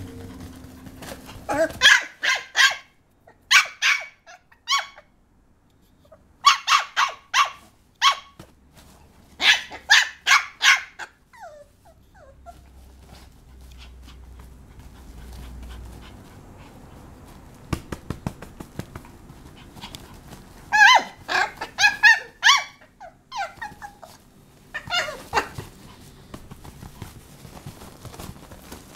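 Papillon puppy barking: about six bursts of several quick, high-pitched yips each, with pauses of a few seconds between bursts and a longer pause in the middle.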